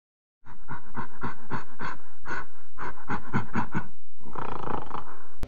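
Gorilla sound effect: a quickening series of short, loud sounds, then one long roar starting about four seconds in that cuts off sharply.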